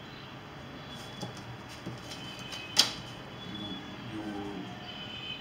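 A plastic French curve and a pencil being handled on a paper pattern on a table: soft rustling and small taps, with one sharp click just before the middle.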